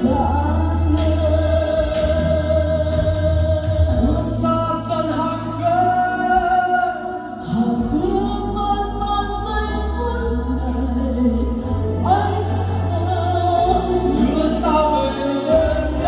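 A woman singing a slow Vietnamese ballad karaoke-style into a handheld microphone over a backing track with a pulsing bass line, amplified through a line-array PA system.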